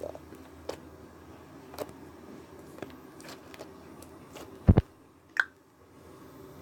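Stiff homemade slime being stretched and handled by hand, giving scattered faint clicks. A heavy low thump comes about two-thirds of the way in, with a sharp click just after it.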